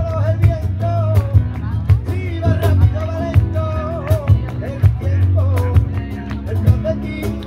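A live band playing a song: a steady drum beat and a heavy bass line under a wavering lead melody.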